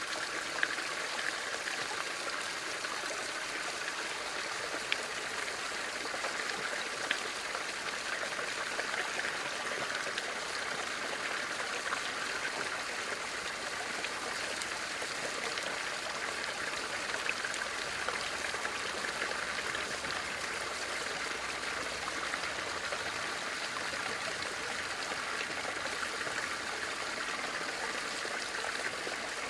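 Bamboo water fountain: water trickling and splashing steadily into a basin, with a few single drips standing out.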